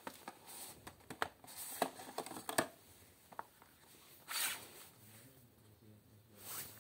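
Cardboard product box being handled on a wooden floor: a run of light taps and scrapes, then a short brushing slide of the box about four seconds in and another near the end.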